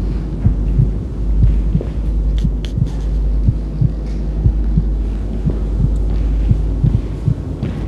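Low steady drone with heavy heartbeat-like thumps about twice a second, a suspense sound effect on a film soundtrack.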